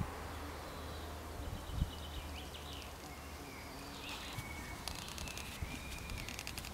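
Quiet woodland ambience: faint birds chirping over a low steady rumble, with a dull thump about two seconds in and a short run of light clicks near the end.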